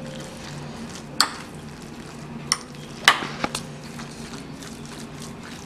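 A spoon stirring moist minced chicken and vegetable filling in a glass bowl, with a few sharp clinks of the spoon against the glass, the loudest about three seconds in.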